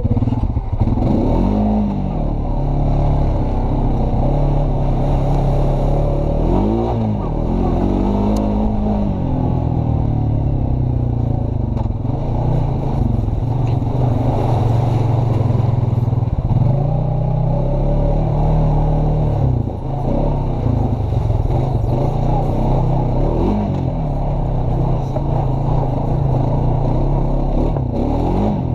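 Honda Rancher 420 ATV's single-cylinder four-stroke engine running under way, revving up and dropping back several times as the throttle is worked.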